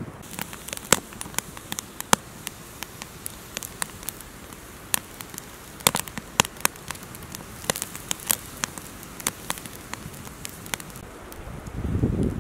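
Wood fire of twigs and branches crackling in an earth pit: irregular sharp pops and snaps over a faint hiss. A louder low rushing noise comes in near the end.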